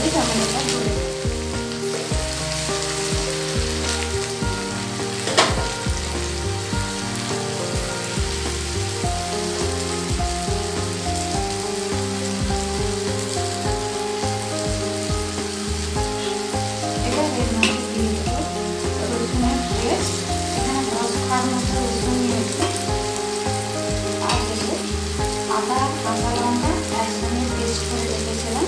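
Chopped onions and tomatoes frying in oil in a nonstick pan, with a steady sizzle. A spatula stirs and scrapes the pan, with a few sharp taps against it.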